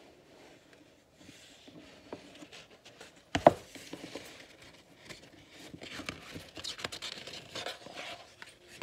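Paper pages of a hardcover picture book rustling as they are turned by hand, with one sharp tap a little over three seconds in.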